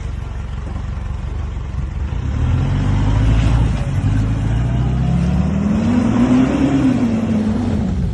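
Pickup truck engine revving: its pitch climbs steadily for several seconds, peaks about three-quarters of the way in, and falls away near the end.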